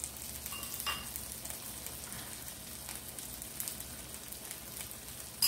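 Chicken thighs sizzling steadily on a hot indoor electric grill, with a light metal click about a second in and a sharper click at the very end.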